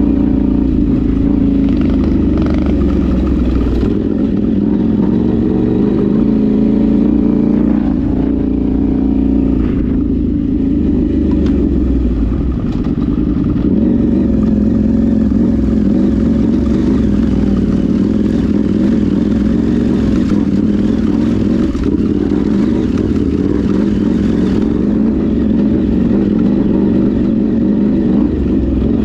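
Off-road vehicle's engine running steadily while driving, a continuous low drone with no letup.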